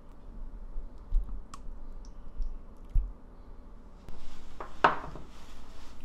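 Fingers picking through raw shucked oysters on a ceramic plate: small wet clicks and a couple of soft knocks. About four seconds in comes a louder noisy rustle with one sharp peak.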